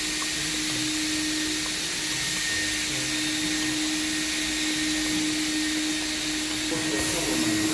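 Vacuum running steadily, a continuous airy rush with a steady motor hum.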